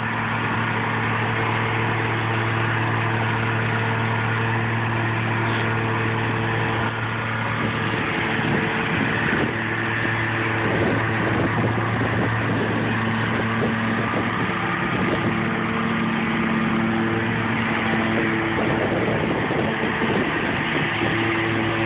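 Engine of a zero-turn riding lawn mower running steadily at an even pitch while mowing.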